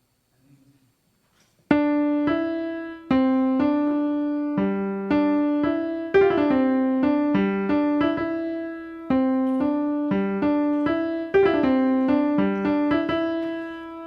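Piano playing a slow run of chords and notes, each struck sharply and left to ring, beginning after a short pause and ending on a held chord that fades out.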